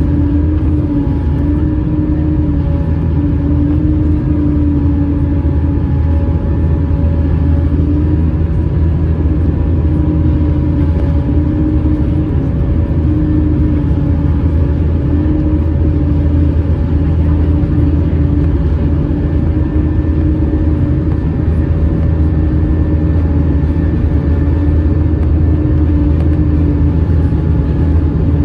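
Airbus A320 cabin noise in flight: a steady rumble of the jet engines and airflow, with a constant hum whose pitch wavers slightly.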